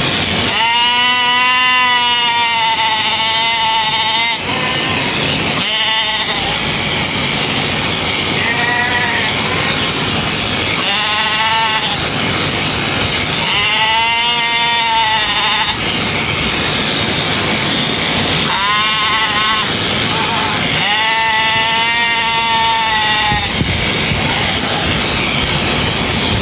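Sheep bleating again and again, about seven long wavering calls of up to three seconds each, over the steady running noise of electric sheep-shearing clippers.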